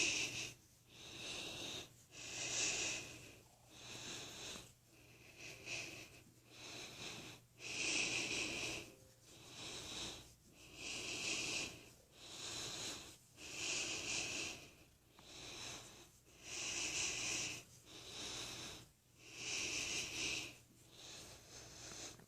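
A person breathing heavily and noisily close to the microphone, in and out in a steady rhythm of about one breath every second and a half, with a wheezy rasp.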